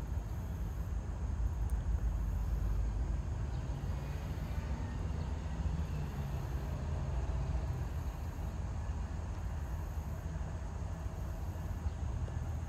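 Steady low rumble of CSX diesel freight locomotives approaching from a distance at the head of a double-stack train.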